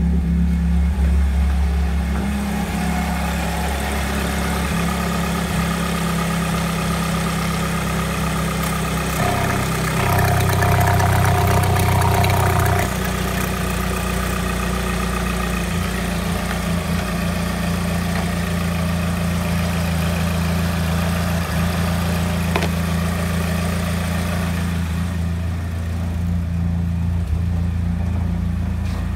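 Alfa Romeo 156 2.0 Twin Spark (937A1000) inline-four petrol engine idling steadily. It is heard from the cabin, then at the engine with the oil filler cap off, then at the exhaust tailpipe. It runs louder for a few seconds about a third of the way in.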